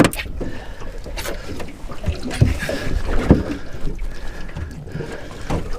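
Wind rumbling on the microphone aboard a small fishing boat, with scattered knocks and handling scrapes against the hull and gear.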